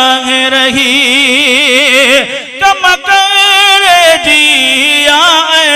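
A man's solo voice singing a Sindhi naat through a microphone. He draws out long melismatic notes with wide, wavering ornaments and takes a short break for breath about halfway.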